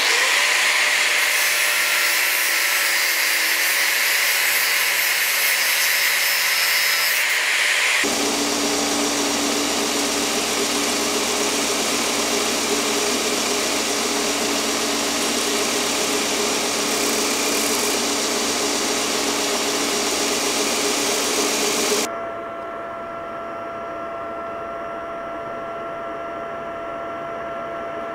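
An angle grinder with a sanding disc running against the steel knife guard. After a cut about eight seconds in, a belt grinder runs as the steel pommel is ground on its contact wheel. From about 22 seconds a quieter, steady hum with a clear tone comes from the buffing wheel used to polish the pommel.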